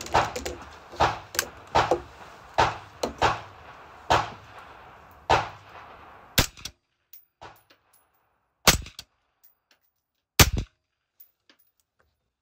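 Suppressed gunshots from an AR-style rifle fitted with an Otter Creek Labs Polonium suppressor: a string of shots about one a second for the first five seconds, then three sharp single shots roughly two seconds apart.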